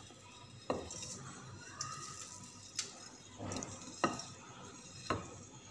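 Dry broken vermicelli being pushed from a glass bowl into a pot of boiling water: a soft rustle of the strands with about five short clinks and knocks of the bowl against the pot.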